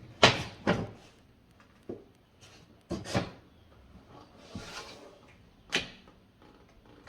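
Sharp wooden knocks and clacks as door stop molding is handled and fitted against the door frame. Two come in a quick pair at the start, another pair follows about three seconds in, and a single knock comes near the end, with a short scraping rustle in between.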